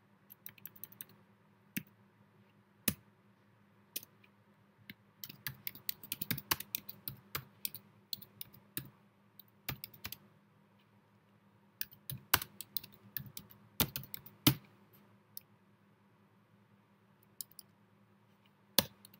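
Typing on a computer keyboard: irregular runs of key clicks with pauses between them, and a few single, sharper key presses.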